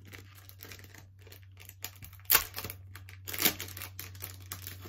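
Thin clear plastic jewellery bag crinkling and rustling as it is handled and pulled open, with two louder crackles, one a little past two seconds in and one about three and a half seconds in.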